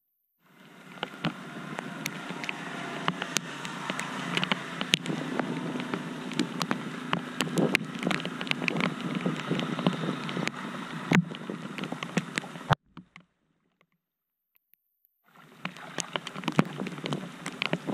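Rain falling on a flooded street and shallow floodwater splashing, with many sharp ticks of drops. It fades in at the start, cuts off suddenly about two-thirds of the way through, and comes back a couple of seconds later.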